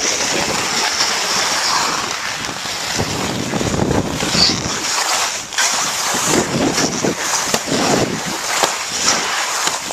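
Skis sliding and scraping over snow, with wind rushing across the microphone in uneven gusts.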